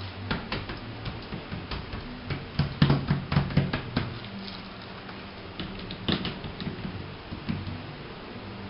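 Hands patting and rubbing greased pieces of campechana dough on a metal baking sheet: irregular soft pats and scrapes with a few sharper clicks, busiest around the middle.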